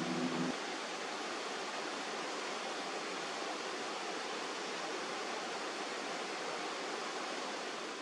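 Steady rush of fast-flowing stream water tumbling over rocks. Guitar music cuts off about half a second in.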